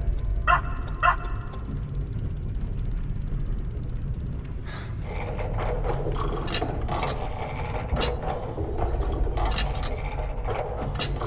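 Clockwork-style mechanical sound effects: from about halfway, a busy run of sharp clicks and ratcheting like gears turning, over a steady low rumble. Near the start there are two short pitched calls.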